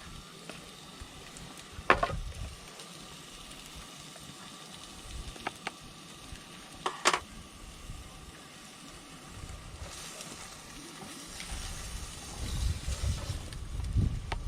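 Wood campfire burning with a steady hiss and sharp crackling pops, the loudest about two seconds in and another about seven seconds in. Low rumbling thumps come in near the end.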